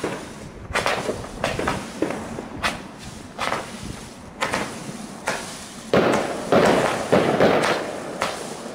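Katan 'Comets' consumer firework cake firing comet shots: a string of sharp launch thumps roughly one every half second to a second, then a faster, louder volley of several shots about six seconds in.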